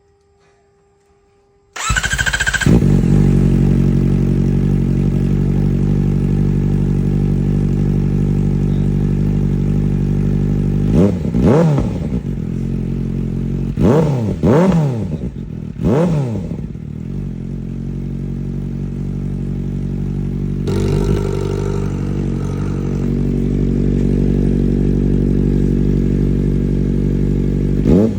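Kawasaki Ninja ZX-4R inline-four with an aftermarket exhaust, started about two seconds in and then idling steadily, blipped several times with quick revs that rise and fall back to idle.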